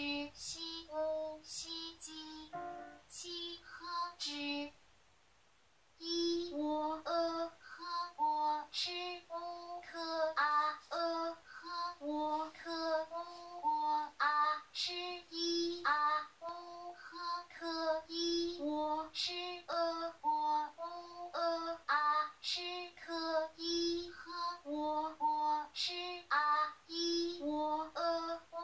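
Short spoken PinYin syllable sounds in a woman's voice, played one after another from loudspeakers at about two a second as stimuli for an auditory brain-computer interface speller. The listener picks a syllable by attending to it. There is a brief pause of about a second near five seconds in.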